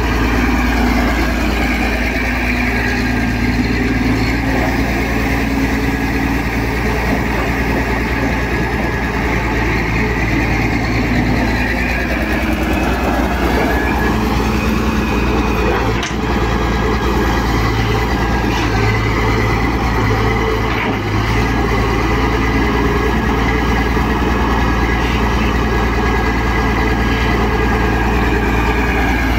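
Daewoo Solar 200W wheeled excavator's diesel engine running steadily under working load as the machine digs, swings and dumps soil with its bucket. The engine note shifts briefly around the middle, and there is a single sharp knock about halfway through.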